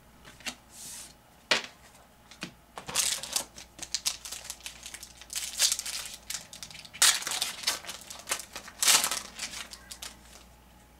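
Trading cards and their wrapper being handled, crinkling and rustling in irregular bursts, with a sharp click about one and a half seconds in.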